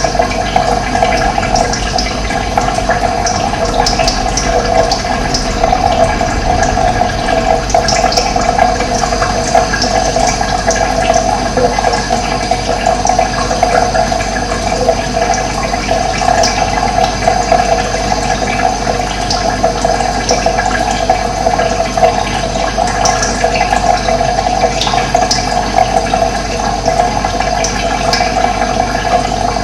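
Steady rush of running water, with short high bird chirps scattered over it.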